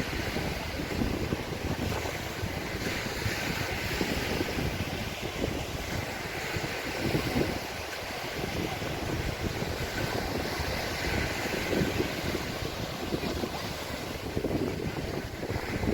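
Sea waves washing onto a sandy beach, with wind gusting on the microphone in irregular low rumbles.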